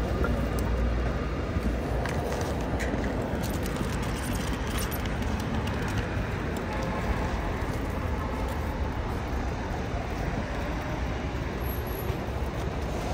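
Street traffic: a steady noise of cars driving past on the road.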